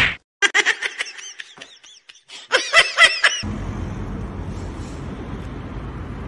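A person laughing in short high-pitched bursts. About three and a half seconds in, it cuts abruptly to a steady outdoor street hum.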